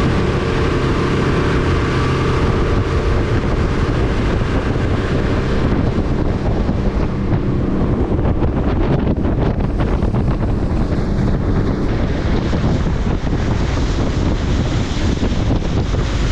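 Small fishing boat's Suzuki outboard motor running steadily under way, with heavy wind buffeting the microphone and rushing water. The engine's tone is plainest in the first few seconds, then mostly buried under the wind noise.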